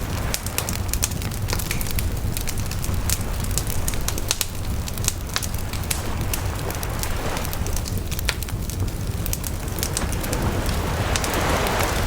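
Campfire crackling with many small, sharp pops over a steady low rumble, while waves wash in on the shore, swelling twice, about halfway through and more strongly near the end.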